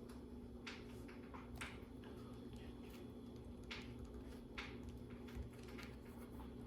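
Faint, scattered clicks of plastic LEGO pieces being handled and pressed into place, about half a dozen spread over a few seconds, over a low steady hum.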